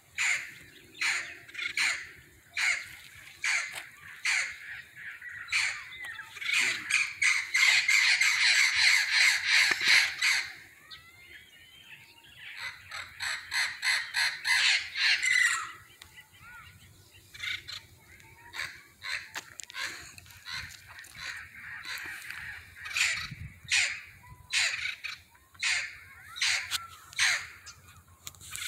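Green parrots squawking from the treetops: repeated harsh calls that twice thicken into continuous rapid chatter, about six to ten seconds in and again around thirteen to fifteen seconds.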